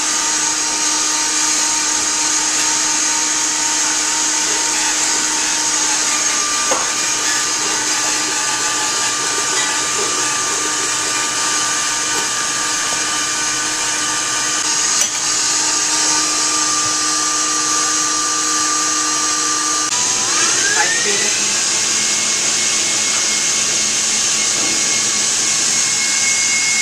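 KitchenAid Commercial stand mixer running steadily, whipping egg whites for meringue. About twenty seconds in, its whine rises in pitch as the motor speeds up, then holds steady at the higher pitch.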